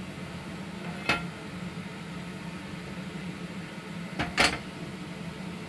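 Clinks and knocks of kitchen dishes and utensils over a steady low hum: one about a second in, then two close together near the end, the second the loudest.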